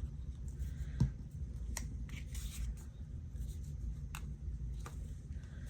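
Quiet handwork with paper and craft tools on a tabletop: a few sharp separate taps and clicks, the loudest about a second in, with a brief faint paper rustle, over a low steady room hum.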